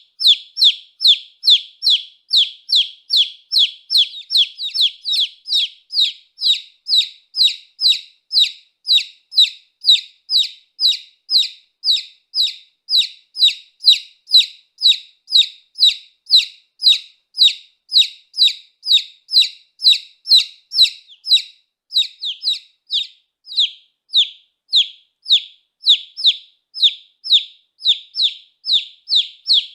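Baby chick peeping over and over, an even series of short high peeps, each falling in pitch, about two or three a second.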